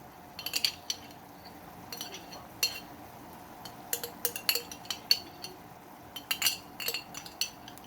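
A cooking utensil clinking and knocking against a pan while stirring shrimp and squid in sauce, in irregular sharp clinks that come in small clusters.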